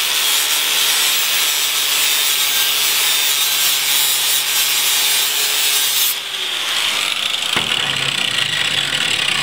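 Angle grinder's abrasive disc grinding down a weld bead on a steel frame plate, with a loud, steady, hissing grind. About six seconds in the disc comes off the metal and the grinder keeps whining, and a knock follows as it is set down.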